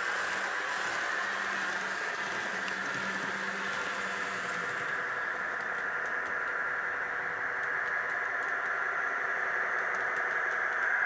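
N-gauge model train running on its track under DCC control: a steady motor hum with wheel noise, easing off about halfway through as the train slows toward the station.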